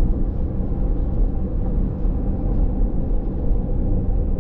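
Steady low rumble of road and engine noise heard from inside the cabin of a moving car.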